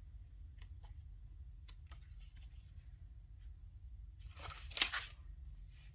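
Paper pages of an oracle-card guidebook being leafed through: a few faint light clicks, then one louder papery rustle of a page turning about four and a half seconds in.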